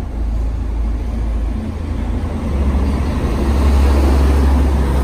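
Large coach bus engine running close by, a heavy low rumble that grows louder about halfway through.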